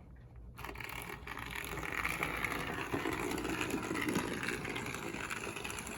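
Aristo-Craft Camelback 0-4-0 model locomotive's electric motor and gears whirring under power, starting about half a second in and growing a little louder. It is running sluggishly, which the owner puts down to fresh grease not yet worked in.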